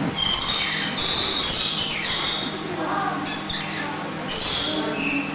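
Lorikeets squawking and chattering in shrill bursts: a loud run through the first two seconds and another a little after four seconds in. A low steady hum sits underneath.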